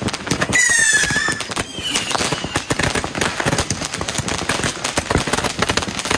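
Fireworks and firecrackers going off all around in a loud, unbroken crackle of rapid bangs, with handheld firework tubes firing. About half a second in, a high whistle sounds for under a second and falls slightly in pitch, and a fainter falling whistle follows about two seconds in.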